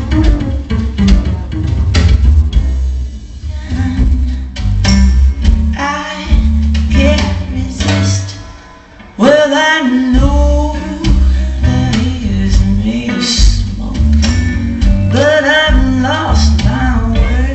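Music with a male singer, guitar and a heavy bass line played loud through a PA system during a sound check. It dips briefly about halfway through, then resumes.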